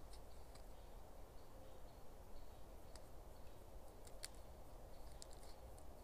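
Faint, scattered clicks and light rustles of small objects handled in the hands, the sharpest click about four seconds in, over a low steady rumble.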